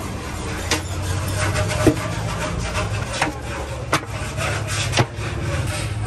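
Handfuls of wet raw meat pieces dropped and pressed into a large aluminium cooking pot, making about five short slaps and knocks against the metal over a steady low hum.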